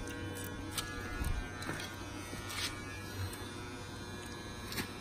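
Steady electrical buzz and hum from an idling inverter arc welder, not striking an arc, with a few light clicks as welding rods and the electrode holder are handled.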